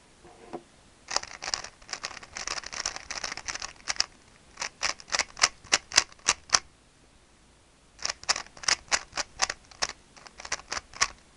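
3x3 plastic speed cube being turned by hand, its layers clacking in runs of quick clicks. A dense flurry comes first, then separate turns about four a second, a pause of about a second and a half after the middle, and another run of clicks to near the end.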